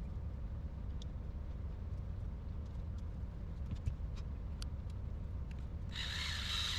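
Faint scattered clicks of small RC-car gear and differential parts being handled during assembly, over a steady low rumble, with a short hiss starting about six seconds in.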